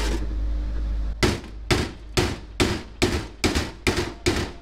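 Hand hammer striking steel: a steady run of ringing blows, about two a second, starting about a second in. It is knocking the bearing cups out of a tractor driveshaft's universal-joint yoke that has been cut through with a grinder.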